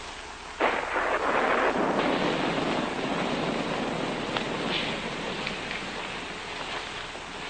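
A crack of thunder over steady rain: a sudden loud crash under a second in, then a long noisy rumble that slowly fades.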